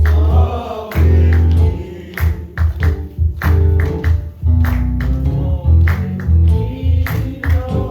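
Gospel music with a heavy bass line under held chords and frequent drum and cymbal hits.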